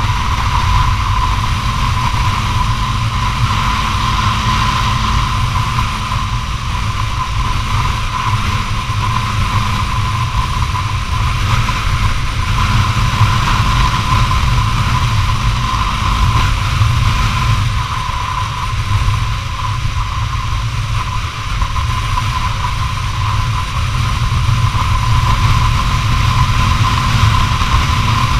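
Honda CBR250R's single-cylinder engine running steadily at highway cruising speed, under heavy wind rumble on the microphone, with a constant high whine.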